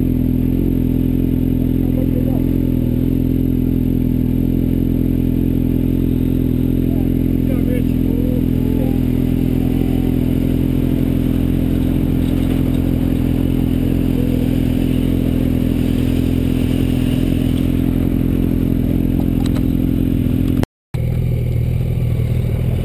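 A sportbike engine idling steadily close by, with faint voices at times. After a brief cut near the end the idle note changes slightly.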